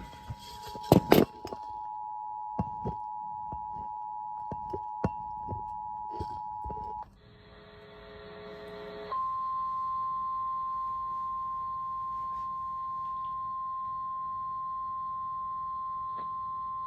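Emergency Alert System alert tones from a weather radio: the two-tone attention signal sounds steadily for about seven seconds, with several clicks and knocks over it and a loud pair of knocks about a second in. It then breaks off for about two seconds of faint static before the single-pitch NOAA Weather Radio warning alarm tone sounds steadily through the rest, heralding a severe thunderstorm warning.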